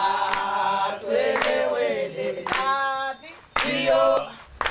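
Opening music: a group of voices singing, with a few sharp claps.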